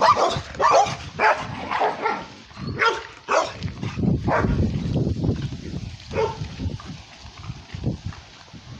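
Dog barking repeatedly, about six sharp barks in the first three and a half seconds, then only a few fainter barks.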